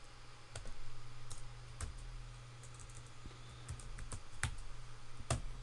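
Computer keyboard typing: a few scattered keystrokes, with a louder click about five seconds in.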